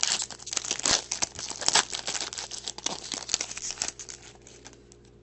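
Trading card pack wrappers being torn open and crinkled by hand, a dense crackling that thins out about four seconds in.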